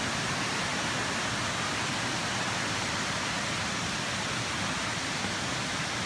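Steady, even rushing of the Kuang Si waterfall, with no breaks or changes.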